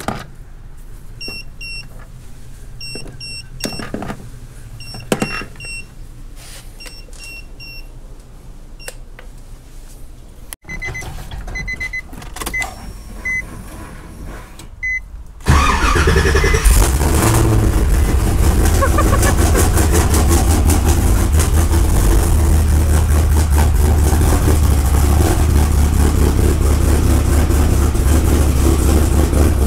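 Car warning chimes beep repeatedly. Then, about halfway through, the Corvette V8 swapped into a Nissan 350Z starts on a jump and runs at a loud, steady idle with a low rumble.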